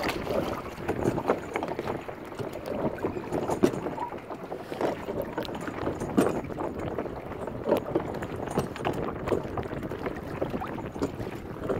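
Water sloshing with small, irregular splashes as a hand moves a fish about at the surface.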